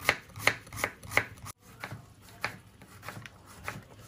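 A kitchen knife slicing a courgette on a plastic cutting board, the blade knocking on the board about three times a second. After a short break, the cuts come softer and more widely spaced as the slices are cut into thin strips.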